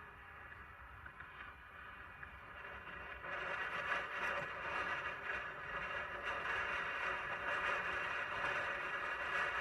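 Sur-Ron electric dirt bike's motor whining at a steady pitch while riding, louder from about three seconds in, over a low rumble of wind.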